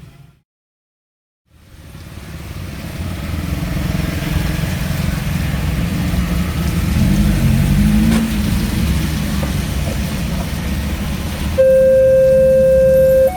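Road traffic rumbling past, building up after a brief silence near the start. About two seconds before the end, the railway level crossing's electronic warning siren starts: a loud, steady tone.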